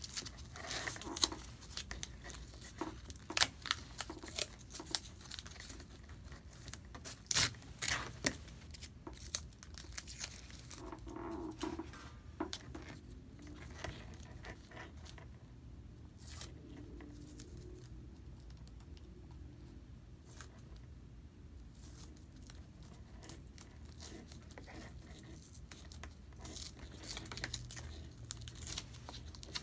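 Adhesive tape being pulled, torn and crumpled by hand, with scattered sharp clicks and rustles as faux-leather straps on a mask are handled.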